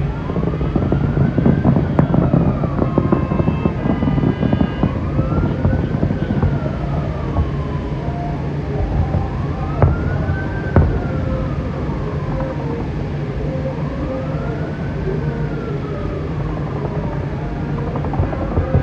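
Emergency vehicle siren in a slow wail, rising and falling about every four and a half seconds, over a dense low din. Two sharp bangs about ten and eleven seconds in.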